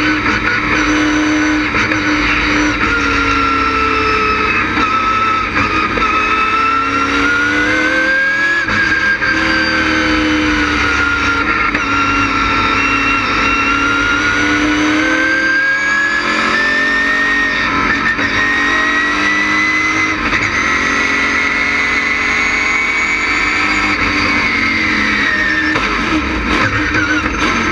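LS6 V8 race engine of a stock car heard from inside its cockpit under hard running, its pitch rising and falling with throttle and speed. The pitch drops near the end.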